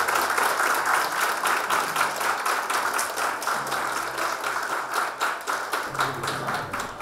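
Audience applauding: steady, dense clapping that thins and stops just before the end.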